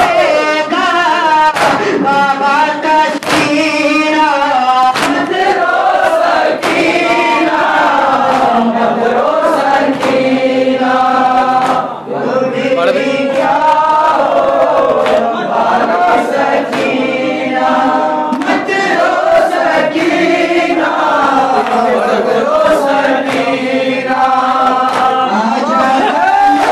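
Young male voices reciting an Urdu noha (Shia lament) into a microphone, the group chanting along, over the rhythmic slaps of hands beating chests in matam, roughly one slap a second.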